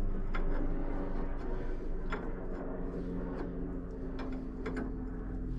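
Hand ratchet clicking in separate strokes as it turns a nut on the van's front suspension, over a steady low hum.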